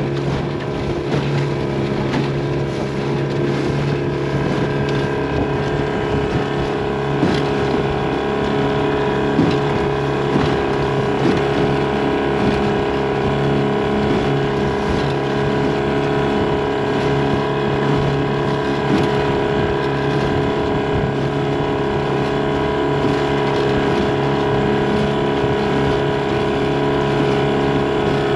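Mercury outboard motor running steadily at an even pitch, driving a small aluminium dinghy along, over a steady wash of water and wind noise.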